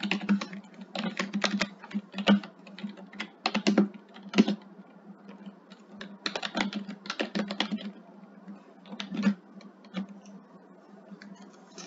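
Computer keyboard typing: irregular runs of quick keystrokes with short pauses between them, sparser near the end.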